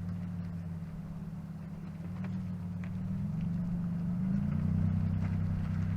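A vehicle engine running steadily, its low hum rising a little in pitch and loudness over the second half.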